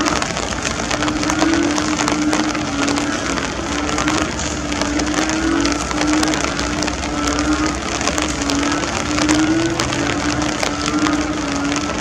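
Heavy torrential rain falling hard, a dense hiss full of fine drop impacts. A low wavering hum runs through it, broken into short segments.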